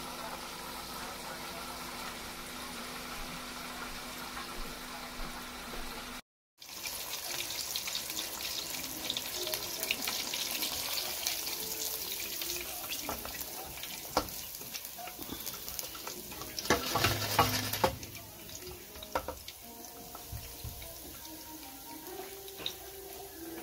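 Chicken deep-frying in hot oil in a Presto Kitchen Kettle XL multi-cooker: a steady bubbling hiss, then, after a short break about six seconds in, the oil crackling and popping, with a louder flurry of crackles about two-thirds of the way through.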